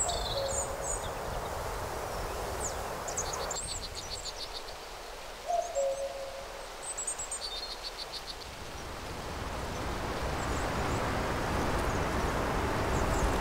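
Woodland ambience: small birds chirping and trilling over a steady rushing background that swells toward the end, with a short low call about five and a half seconds in.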